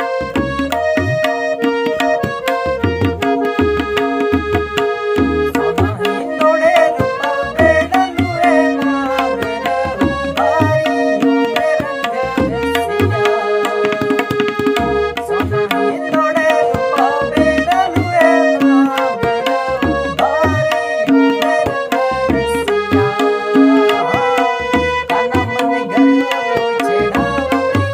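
Tabla and harmonium playing a Gujarati garba folk tune: the harmonium holds the melody in steady reedy notes while the tabla plays a rhythmic pattern of sharp strokes over deep, pitch-bending bass-drum tones.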